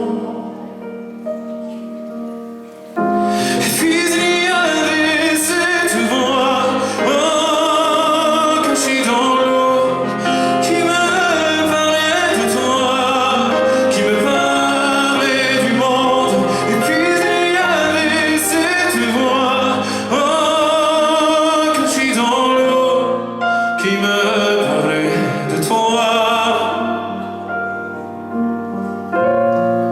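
Live pop-folk song: a singing voice over instrumental accompaniment. The music is quieter for the first three seconds, then comes in fully with the voice.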